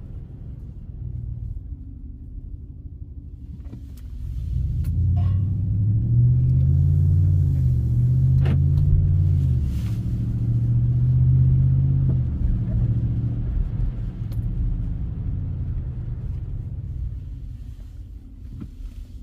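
Exhaust drone of a Ram 1500 pickup fitted with an MBRP aftermarket muffler, heard from inside the cabin during normal driving. The low drone grows much louder about five seconds in, holds, then settles back near the end.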